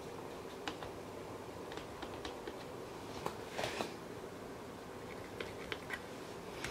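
Scattered light clicks and taps of a pen and plastic parts being handled, with a short rustling scrape about halfway through, over a steady background hum.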